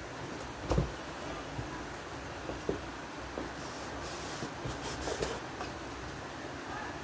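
Handling noises from unboxing: a sharp knock about a second in, another knock a little later, then rustling and light taps of packaging being moved.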